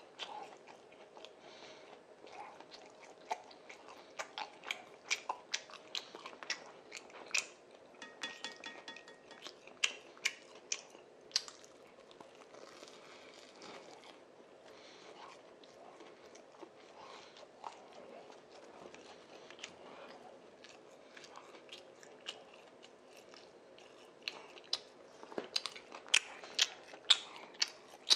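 Close-up chewing and crunching of a fried twisted doughnut (kkwabaegi), with sharp wet mouth clicks. The crunching grows louder and comes faster in the last few seconds.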